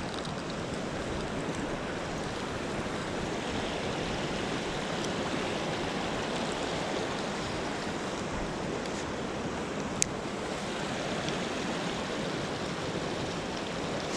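Creek water rushing steadily, with a single sharp click about ten seconds in.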